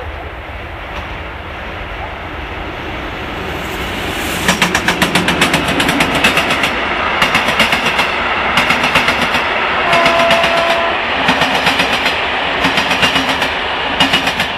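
Passenger train hauled by a Bombardier TRAXX electric locomotive passing close by. A rumble builds, then the wheels clatter over the rail joints in repeating groups as each car goes past.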